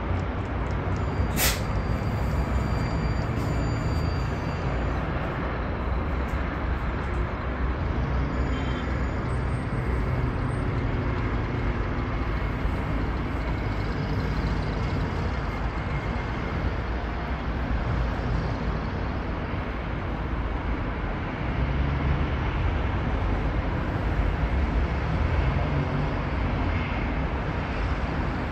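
Dense road traffic on a jammed multi-lane highway: a steady rumble of car and truck engines and tyres that swells and eases. A single sharp click about a second and a half in.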